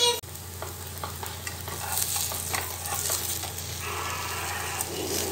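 Pancake frying with a light sizzle in a non-stick kadai, with scattered clicks and scrapes of a metal spatula against the pan.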